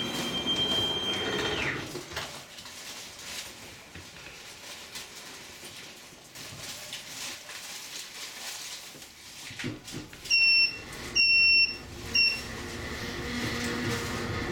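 Funicular car running with a high wheel squeal that slides down and dies away as it comes to a stop about two seconds in. It stands quietly, then three loud electronic two-tone beeps sound about ten to twelve seconds in, and the car's running noise starts to rise again as it moves off near the end.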